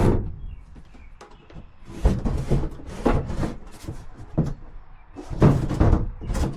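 A sharp knock like a lid or cabinet door shutting, then two bouts of bumping and scraping and a last click as things are handled and slid about.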